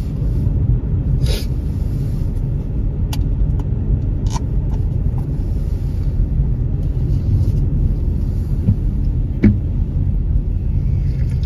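Steady low rumble of a car driving, heard from inside the cabin, with a few short knocks, the sharpest about nine and a half seconds in.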